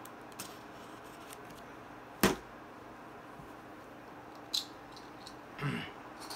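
Handling noises over a low steady room hiss: one sharp knock about two seconds in, a smaller click later and a short scuffing rustle near the end.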